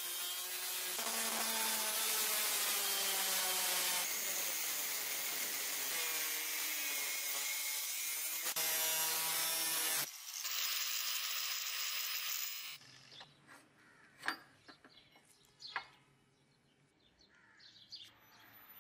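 Angle grinder with a thin cutting disc cutting into a steel Damascus knife blade held in a vise: a harsh grinding hiss over the motor's whine, which stops about 13 seconds in. Two sharp knocks follow over quiet room sound.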